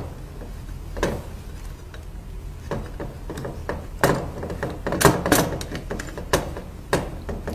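Scattered clicks and knocks as the heating pad of a sublimation heat press is handled: its silicone cover comes off and sealing lines are fitted to the cover's borders. A low steady hum runs underneath.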